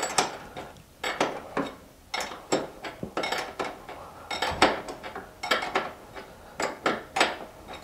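Steel open-end wrench clinking against the shift-linkage adjustment nut as it is repositioned and turned to tighten the nut: a string of sharp, irregular metal clinks, about two a second.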